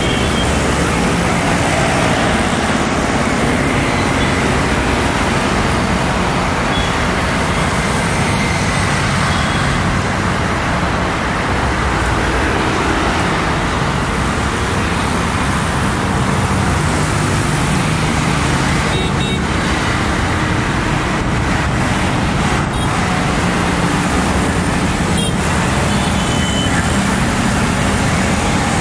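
A steady, loud roar of engine noise, with a few faint clicks a little past the middle.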